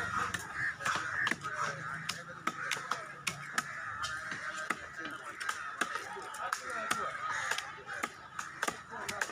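Heavy fish-cutting knife chopping a trevally into steaks on a wooden block: sharp, uneven knocks of the blade through flesh and bone into the wood, about two a second.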